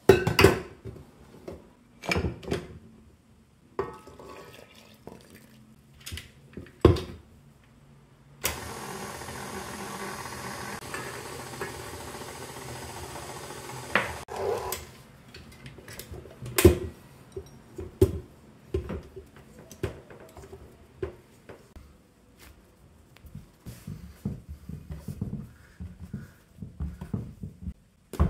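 A few sharp knocks of bowl and utensil handling, then a KitchenAid Artisan stand mixer's motor running steadily for about six seconds as it mixes the dough. After that come scattered thuds, then a rapid flurry of soft taps near the end.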